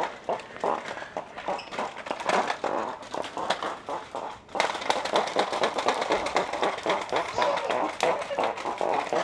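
Indistinct chatter of a crowd of people, with no single clear voice, getting louder about halfway through.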